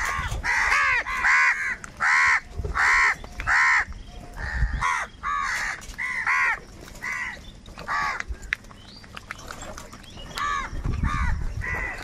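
A flock of house crows cawing, harsh calls following close on one another, several birds overlapping. The calls come thick and fast at first, thin out in the middle, and pick up again near the end.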